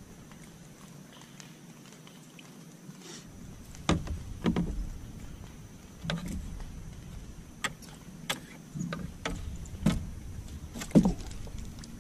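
Scattered sharp knocks and clicks of rod, reel and gear being handled in a small boat while a hooked fish is reeled in, starting about four seconds in after a quiet opening.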